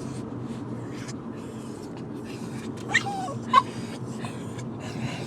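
Excited dog panting rapidly, with a short whine about three seconds in and a sharp yip just after it, over the low hum of car road noise.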